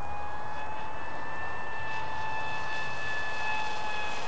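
Electric motor and propeller of a Dynam Hawksky RC glider running under power, on a four-cell battery: a steady high whine that rises slightly in pitch and then slowly eases down as the model flies by.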